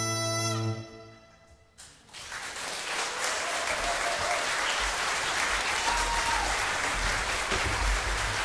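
The final held chord of bagpipes over a steady drone dies away about half a second in, its pitch sagging downward. After a moment of near silence, an audience breaks into steady applause.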